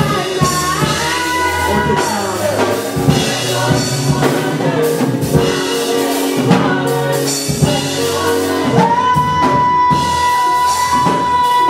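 Live church worship music: singing over a band with drums, and a long held note coming in about nine seconds in.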